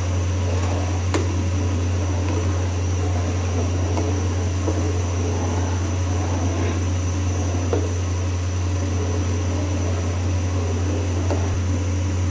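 Steady loud low hum of a fan-like machine running, with a few faint clinks of a metal spoon stirring liquid in a metal pot.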